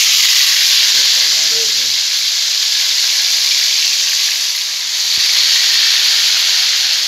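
Raw chicken pieces frying in hot oil in a skillet: a loud, steady sizzle.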